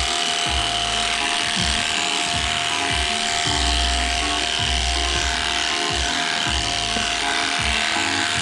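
Background music with shifting bass notes, over the steady buzz of electric sheep-shearing clippers.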